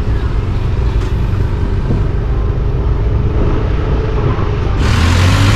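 Street traffic on a busy city boulevard: a steady low rumble of vehicle engines and tyres, with a louder rushing noise coming in suddenly near the end.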